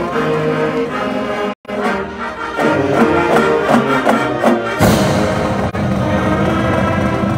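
College marching band playing, brass-led: held chords, then a run of short repeated notes, then a louder, fuller passage from about five seconds in. The sound cuts out for an instant about a second and a half in.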